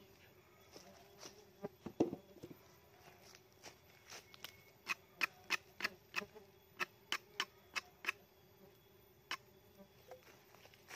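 A knife blade clicking and scraping as it cuts around the inside of a hollow-log stingless bee hive, the sharp clicks quickest in the middle at about three a second. Under them is the steady faint buzz of the small stingless bees (Tetragonula laeviceps) flying around the opened nest.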